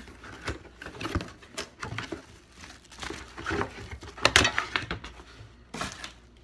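Packaging rustling and knocking as a boxed diffuser is taken out by hand, in irregular bursts of handling noise, loudest about four seconds in.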